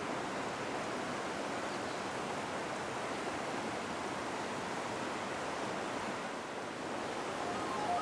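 Mountain stream rushing over rocks, a steady, even rush of water. Music with stepped notes comes in at the very end.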